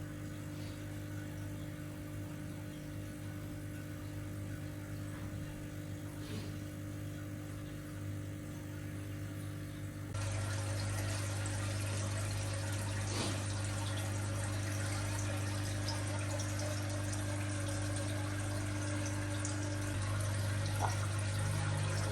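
A steady low hum with a faint hiss. About ten seconds in, a louder, steady rushing noise joins it abruptly.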